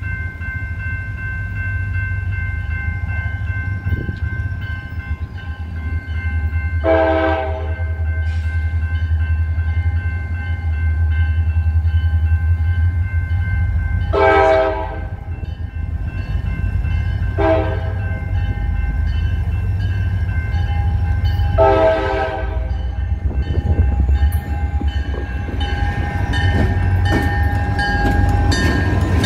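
CSX diesel freight locomotives approaching a grade crossing, the horn sounding the crossing signal of long, long, short, long blasts over the low rumble of the diesel engines, while the crossing bell rings steadily. Near the end the lead units pass close, with wheels clicking over the rail joints.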